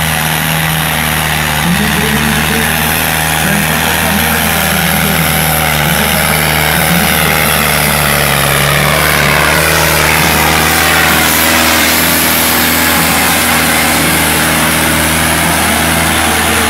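Tractor diesel engine running hard and steadily under heavy load as it drags a weighted harrow through dirt in a pulling contest.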